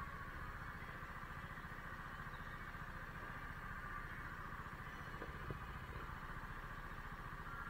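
Go-kart engine running steadily as the kart drives around the track, heard from on board.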